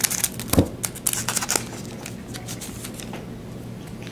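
Foil trading-card pack being torn open, the wrapper crinkling in a quick cluster of sharp crackles during the first second and a half, then only faint handling noises over a low steady hum.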